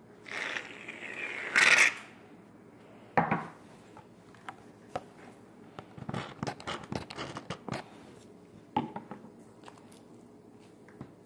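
Aerosol can of Gillette shaving cream spraying foam in a hiss for about two seconds, ending in a loud sputtering burst. A knock follows, then a run of small wet clicks and crackles as the foam is squished and kneaded into soft slime, with another knock near the end.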